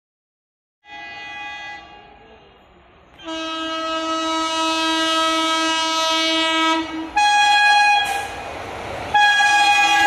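Indian Railways electric locomotive sounding its horn as it approaches: a short faint blast, then a long lower-pitched blast of about three and a half seconds, then two higher blasts, the last still sounding at the end. The rush of the oncoming train grows from about eight seconds in.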